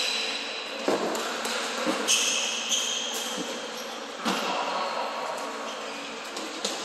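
Indoor floorball play on a hardwood gym floor: sneakers squeaking in short high squeals, and sharp knocks of plastic sticks and ball about a second in, at two seconds and just past four seconds.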